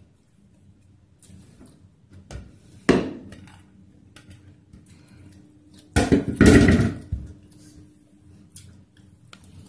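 Glass serving bowl and wooden plate knocking together as rice is tipped out: one sharp knock about three seconds in, then a louder clatter lasting about a second around six seconds in.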